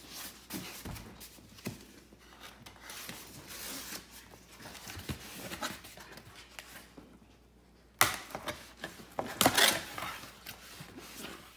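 Cardboard mailer box being opened by hand: rustling and scraping of cardboard flaps, with a sudden louder stretch of cardboard handling about eight seconds in and more loud bursts just after.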